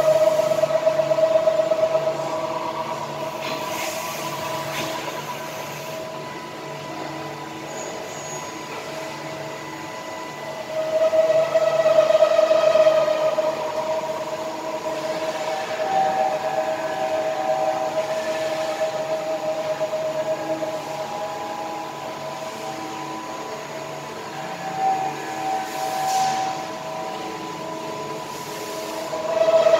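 Mazak Integrex 200-IV CNC turning and milling centre running a machining cycle: a steady high whine of several tones over a hiss of coolant. It swells louder at the start, about eleven to thirteen seconds in, and again at the end.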